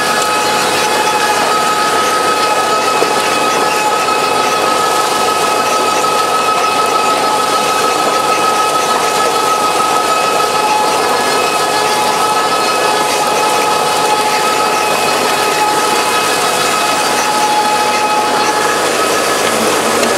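Dewulf P3K beet harvester and its tractor running while lifting red beets: a steady mechanical clatter with a constant whine over it.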